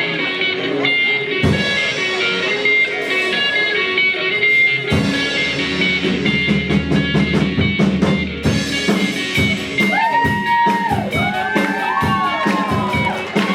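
A band playing a blues-rock instrumental passage on guitar and drum kit. About ten seconds in, high notes start sliding up and down, like bent lead-guitar notes.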